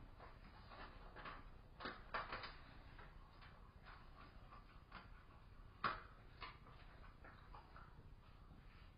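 Faint scattered clicks and knocks over a low hiss, a small cluster about two seconds in and one sharper knock near six seconds.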